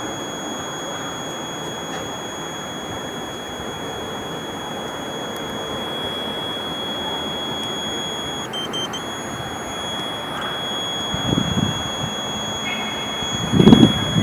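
A steady high-pitched electronic tone, like a buzzer, holds over a constant background hiss and dips briefly in pitch about two thirds of the way through. Near the end come a few low bumps and rustles of handling.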